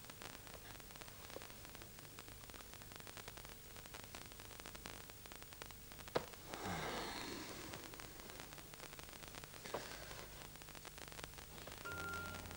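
Steady low background hiss on the soundtrack, broken by a sharp click about six seconds in and a brief rustling noise just after it, with another faint click a few seconds later. Quiet music begins near the end.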